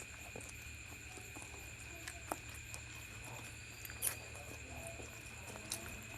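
Close-up eating sounds: a scattering of small wet clicks and smacks from chewing luchi and egg masala, the loudest about two and four seconds in, over a steady electrical hum with a faint high whine.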